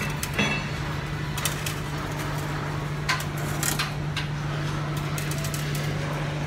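Shipyard metalwork: scattered sharp metallic clanks and taps on steel, about half a dozen at irregular intervals, over a steady low machine hum.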